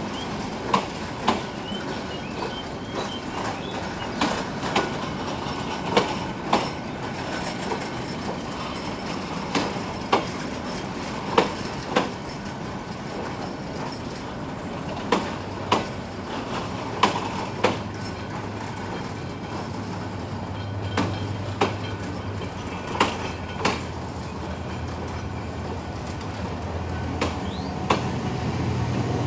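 Bangladesh Railway intercity passenger coaches rolling past with a steady rumble, broken every few seconds by a double clack as each bogie's pair of wheels crosses a rail joint. A low steady hum grows in during the second half.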